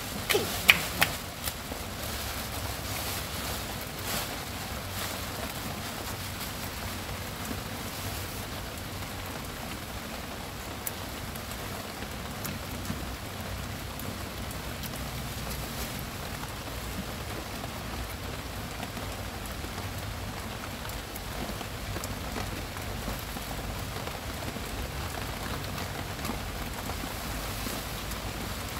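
Steady rain falling on a terrace, an even hiss of drops throughout, with a few sharp clicks and knocks in the first couple of seconds.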